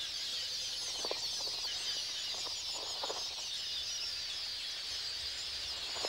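Dense, continuous high-pitched twittering of a flock of red-billed queleas at a breeding colony, with a few short, louder, lower calls about a second in and near the middle.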